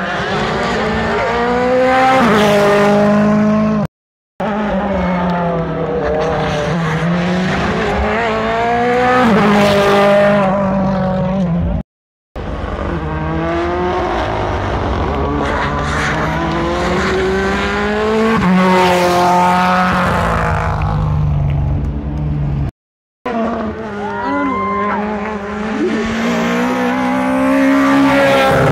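Rally cars passing on a tarmac stage, engines revving up and dropping back through gear changes as each goes by. The sound breaks off abruptly three times where short clips are joined.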